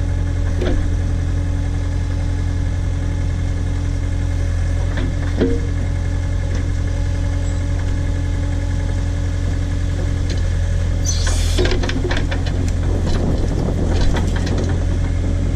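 Case/Davis D100 backhoe's engine running steadily. About eleven seconds in comes a brief hiss, followed by scattered clattering knocks.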